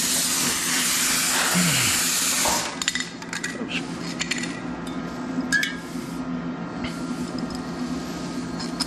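Plasma cutter's air jet hissing steadily, cutting off about two and a half seconds in. Then come light metallic clinks and clicks of tools and steel plate being handled, over a steady low hum.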